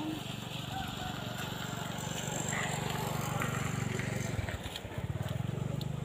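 A small engine running steadily with a fast, even pulse. It drops away briefly about four and a half seconds in, then picks up again.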